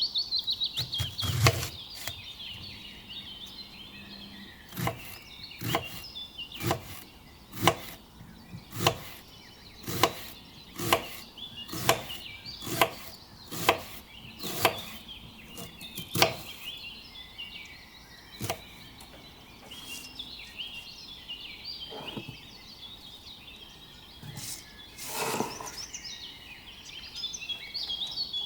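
Knife chopping onion on a wooden cutting board: even strokes about once a second for roughly ten seconds, then a few sparser knocks. Birds chirp in the background.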